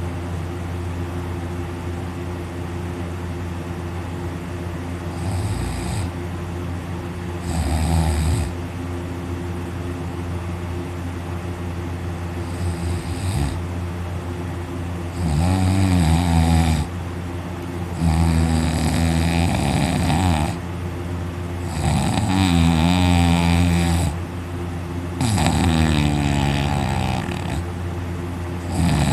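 A person snoring loudly in deep sleep. A few short snores come in the first half, then long, rattling snores about every three seconds from about halfway on, over a steady low hum.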